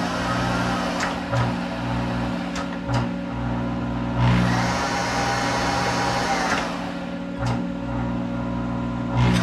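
Monarch 10EE lathe spindle running through a warm-up cycle, its motor and headstock gearing whining. The whine falls as the spindle slows at the start, rises about four seconds in and drops back a couple of seconds later, then climbs again near the end. Underneath runs a steady hum, with a few sharp clicks.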